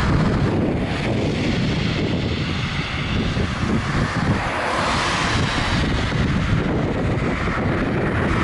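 Wind rumbling on the microphone over the steady noise of road traffic, with the sound of passing cars swelling about a second in and again about five seconds in.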